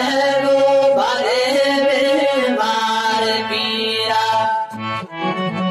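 Gojri devotional folk song: a wavering sung note held over a free-reed instrument, after which the reed instrument carries on alone, changing to a choppier figure about five seconds in.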